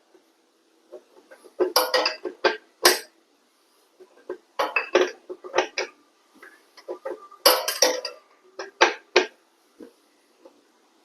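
Ratchet wrench working the 27 mm rear axle nut loose on a 1986 Honda Gold Wing GL1200: metallic clicking and clinking in four short bursts with pauses between.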